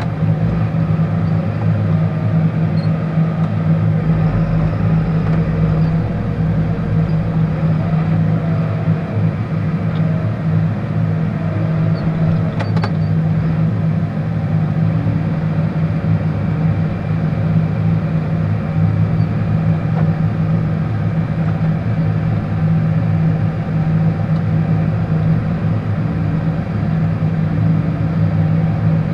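John Deere farm tractor's engine running steadily under load while plowing snow, heard from inside the closed cab. A faint click about halfway through.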